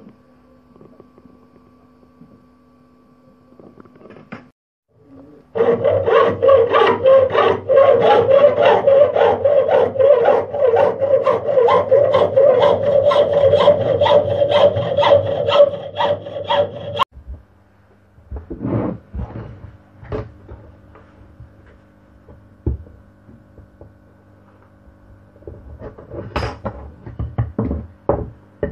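Small red-framed hand saw cutting a wooden strip clamped in a bench vise, in rapid, even back-and-forth strokes for about ten seconds, stopping abruptly. After it, a few scattered knocks of wooden pieces handled on the workbench.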